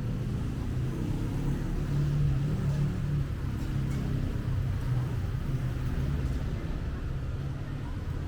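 City street traffic, with a vehicle engine running close by: a steady low hum that swells a little about two seconds in.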